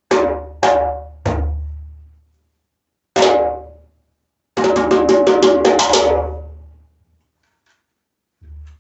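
Djembe with a tight water buffalo calfskin head, played by hand: three ringing strokes in the first second and a half, a single stroke at about three seconds, then a fast run of about ten strokes around five seconds in, with a bright ring and a low boom under it. A faint soft hit comes near the end.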